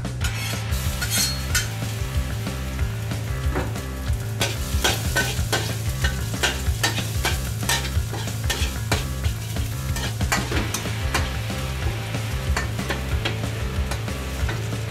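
Minced garlic sizzling in hot oil in a metal wok, with a metal spatula scraping and tapping against the wok as it is stirred. The scraping and tapping gets busier from about four seconds in.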